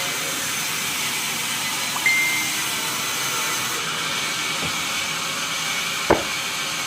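Sawmill machinery running with a steady whirring hiss, with a brief squeal about two seconds in and a sharp knock near the end.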